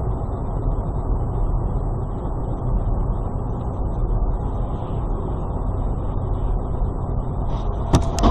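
Steady low rumble of a car driving, with road and engine noise. A sharp knock comes near the end.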